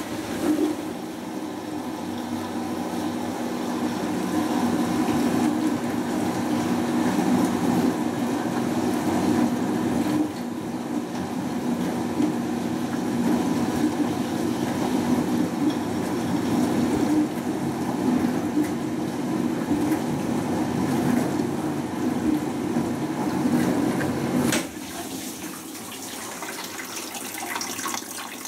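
Hotpoint Aquarius+ FDW70 dishwasher's drain pump running, a steady hum with rushing water as it pumps the machine out, stopping abruptly about 25 seconds in. Fainter water sounds follow near the end.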